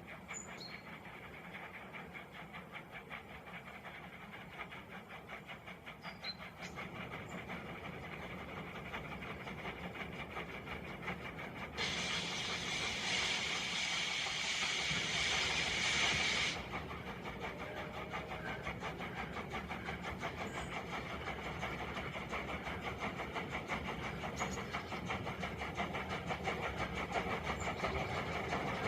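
Diesel locomotive engine running with a steady fast pulse that slowly grows louder. About twelve seconds in, a loud hiss of air starts suddenly and cuts off sharply some four to five seconds later.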